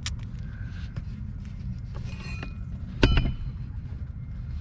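A single sharp metallic clank that rings briefly, about three seconds in, as the bolted john-boat seat comes off, with a few light clinks of loose metal earlier, over a steady low rumble.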